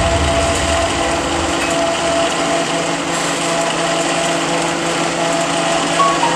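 Biomass gasifier plant machinery running steadily: a constant mechanical drone with several steady hum tones over a broad rushing noise, from the pellet-feeding bucket elevator and the gasifier's equipment.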